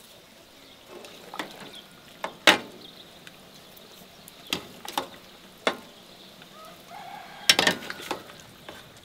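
Scattered sharp knocks and clicks, the loudest about two and a half seconds in and a quick run of them near the end.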